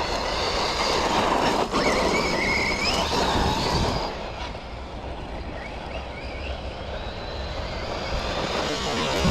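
Losi Lasernut U4 1/10-scale brushless RC rock racer driving: a motor and gear whine that rises and falls with the throttle over rough tyre-on-ground noise, dropping quieter about four seconds in.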